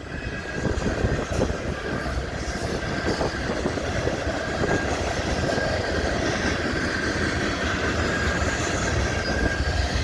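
A CN freight train's cars rolling past: a steady rumble and clatter of wheels on the rails, with a thin steady wheel squeal running under it.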